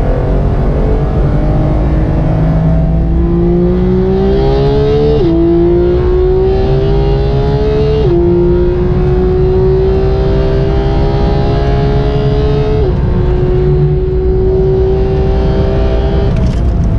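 Porsche 991.2 GT3's naturally aspirated 4.0-litre flat-six at full throttle, heard from inside the cabin. It climbs in pitch through the gears, with three quick upshifts about five, eight and thirteen seconds in, then holds a steadier note.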